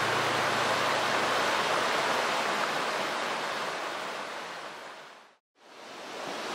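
Mountain stream water rushing steadily, fading out to silence about five seconds in and then fading back up.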